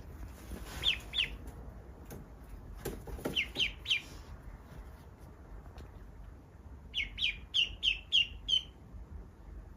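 Duckling peeping: short, high, falling peeps in bursts, two about a second in, three a couple of seconds later, and a quick run of about six near the end.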